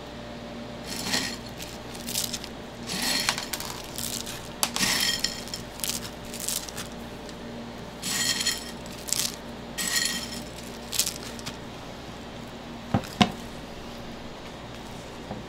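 Chocolate cereal rings rustling and clinking in a run of irregular crackly handfuls as they are grabbed and dropped onto a stainless steel bowl of shaved ice, then two sharp knocks close together near the end.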